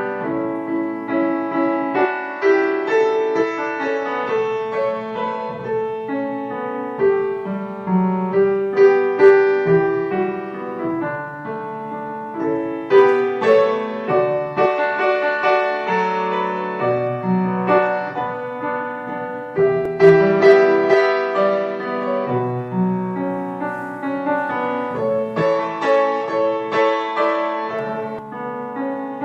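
Solo piano music: notes and chords struck and left to ring, with the melody in the middle register over lower held notes.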